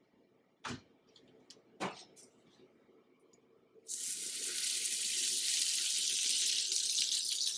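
Butter sizzling on a preheated griddle, starting suddenly about four seconds in as a spoonful lands on the hot surface and then hissing steadily. Before it, two light knocks.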